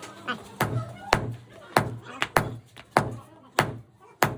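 Repeated hard blows at a steady pace of about one every 0.6 seconds, seven in all, each a sharp strike with a short ring.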